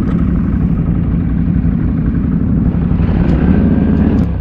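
Can-Am Renegade ATV's V-twin engine running hard under load as the quad drives through snow, its revs climbing a little about three seconds in.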